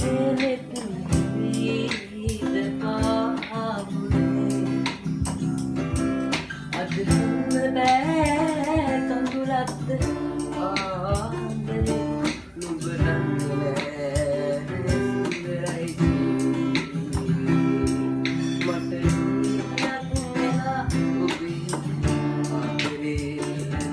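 A boy singing a Sinhala song with vibrato to a strummed acoustic guitar.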